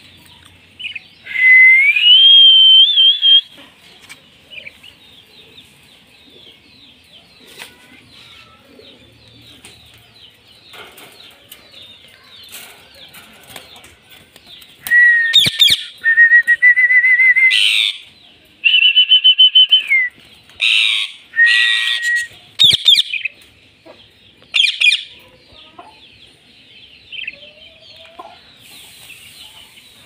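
Caged Indian ringneck parrots calling: a long, rising whistle-like call near the start, then a run of loud, shrill calls about halfway through. Soft fluttering and scrabbling on the cage wire fills the gaps.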